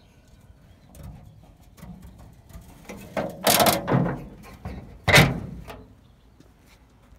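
The steel hood of a 1949 Dodge pickup being lowered, with knocks and scraping handling noise, then shut with one loud bang about five seconds in.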